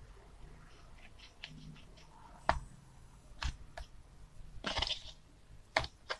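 A thin plastic container lid handled in the hands, with a pin worked through a hole in it: scattered light clicks and taps, and a short rustling scrape a little past the middle.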